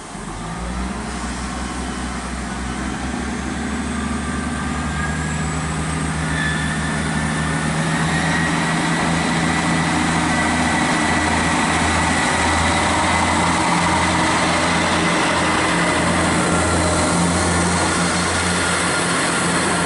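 Class 158 diesel multiple unit pulling away under power. Its engine note rises in pitch and grows louder over the first several seconds, then settles into a steady drone.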